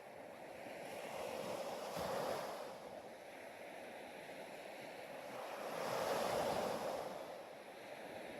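Ocean waves washing in: two swells of surf about four seconds apart, the second the louder.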